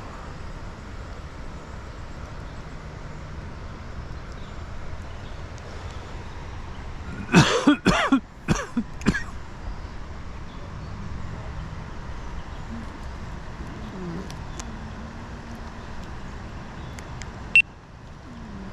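A person coughing four times in a quick fit, against a steady outdoor background hiss, with a sharp click near the end.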